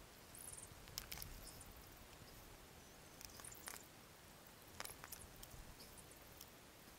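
Near silence, broken by a few faint clicks and scrapes of a small plastic tub being handled, about a second in, in the middle and near five seconds.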